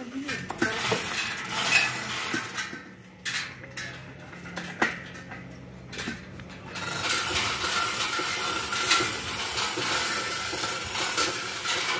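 Scattered metal clinks and knocks of chain and rigging hardware as line-array speaker cabinets are hung on an aluminium truss. From about seven seconds in, a steadier outdoor background noise takes over.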